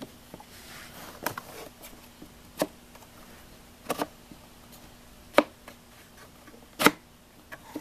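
Sliding wooden panels of a homemade Japanese puzzle box being worked: five sharp wooden clicks, about one every second and a half, one of them doubled, with faint rubbing between.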